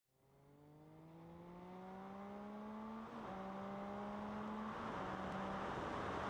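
Triumph Daytona 675's three-cylinder engine accelerating, its pitch climbing steadily, then a quick upshift about three seconds in drops the note, after which it pulls at a steadier pitch under a rising rush of wind. The sound fades in from silence at the start.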